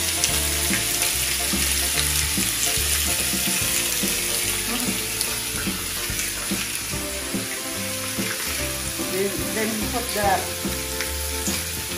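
Steaks and sliced onions sizzling steadily on a hot electric griddle grill, over background music.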